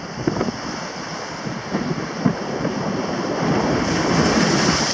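Choppy sea surf washing against the boulders of a stone jetty, with wind buffeting the microphone; the wash swells louder near the end.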